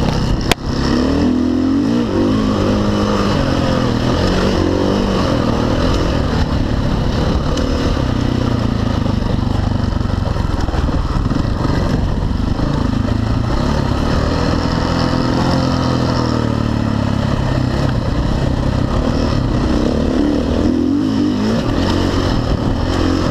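Dirt bike engine running under way, its pitch rising and falling over and over as the throttle opens and closes. A sharp knock about half a second in.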